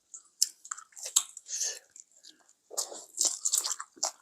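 A person biting and chewing food in short, irregular bites with brief pauses between them.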